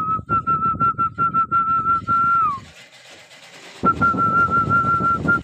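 A person whistling a quick run of short notes on one pitch, about six a second, that ends in a long note falling away; after a pause of about a second the run starts again.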